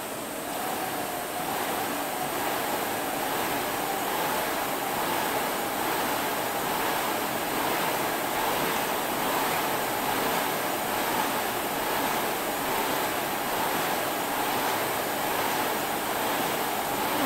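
Concept2 SkiErg's fan flywheel spinning fast under hard double-pole pulls: a steady rushing whoosh of air with a faint hum. It builds over the first second or two as the pace comes up, then holds level.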